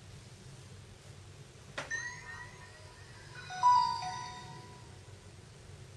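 Samsung Galaxy S3 start-up chime playing from the phone's loudspeaker as it boots. A brief click and a short rising jingle come about two seconds in, then a louder chord a little later that fades out.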